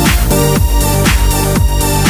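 Electronic dance music with a steady beat of about two kicks a second under held synth chords.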